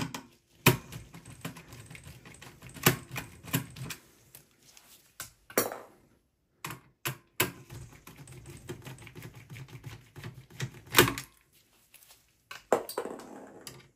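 Scattered sharp clicks and taps of a screwdriver working a motherboard screw out of a steel PC chassis, the loudest knock about eleven seconds in.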